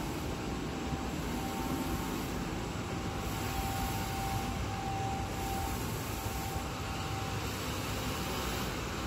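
Wide-format digital textile printer running: a steady machine noise with a faint whine that switches on and off every second or so.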